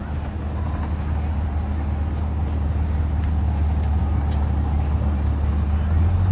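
An engine running steadily with a deep hum, growing louder and rising a little in pitch near the end.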